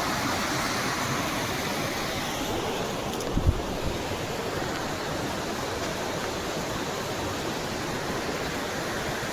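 Waterfall rushing steadily, with a brief low thump about three and a half seconds in.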